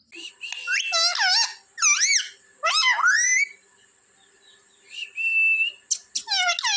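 A pet parrot whistling and chirping: quick, high whistled notes sweeping up and down for the first three seconds and again near the end, with one short steady whistle about five seconds in.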